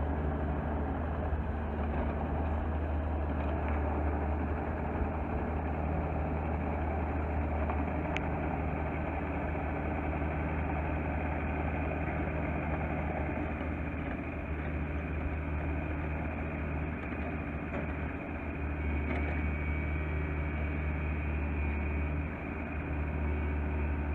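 Takeuchi TB175 midi excavator's diesel engine idling steadily, with a couple of brief dips in level.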